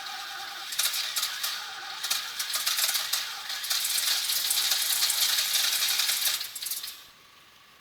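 V8 engine in a Ford Sierra being started: it splutters with an irregular rattling clatter, then falls quiet about seven seconds in.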